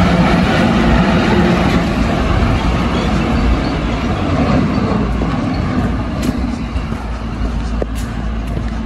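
A motor vehicle's engine running close by, its sound fading gradually as it moves off.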